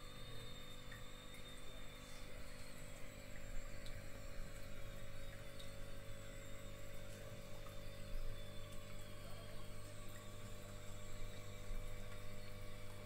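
Marine aquarium pumps and wavemaker running: a low, steady electrical hum with a faint even hiss and a few small ticks.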